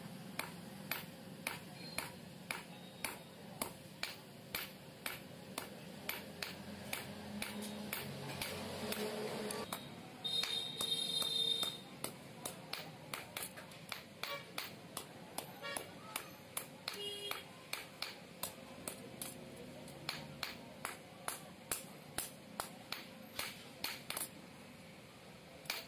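Blacksmith's hand hammer striking a red-hot hasiya (sickle) blade on a small block anvil in quick, even blows, about two or three a second, each with a short metallic ring. The blows stop for a moment about ten seconds in, where a louder ringing sound takes over, then start again.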